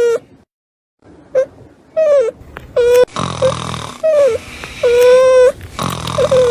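Newborn puppies crying: a string of short, high-pitched squeals and longer whining cries, with snuffling, wheezy grunting between the cries.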